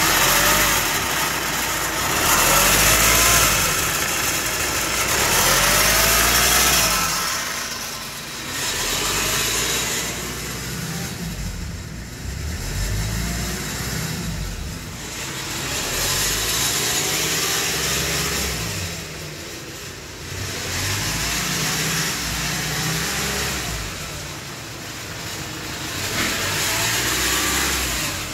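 Hyundai iLoad's 2.5-litre four-cylinder turbodiesel running, blipped up from idle several times so the revs rise and fall in repeated swells. The engine is being tested, and the wreckers judge it good.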